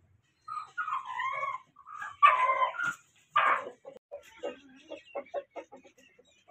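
Chicken crowing: a few loud, drawn-out, wavering calls over the first four seconds. Then a hen clucking in short, even clucks, about four a second, as she settles on the nest to lay.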